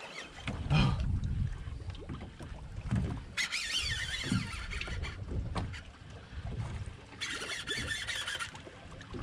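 Heavy spinning reel whirring in two bursts, about three and a half and seven seconds in, as line is cranked in against a heavy fish. Underneath, wind and water wash around the boat with a few dull knocks.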